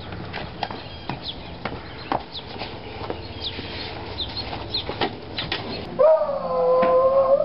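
Birds chirping, with scattered light clicks such as footsteps. About six seconds in, this gives way abruptly to a louder steady pitched tone with overtones, held for over a second.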